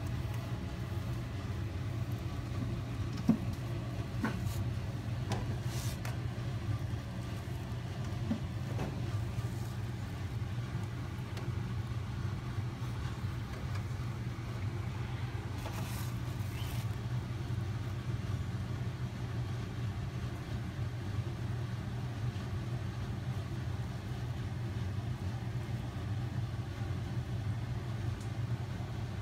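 A steady low background hum, with a few faint clicks and taps now and then.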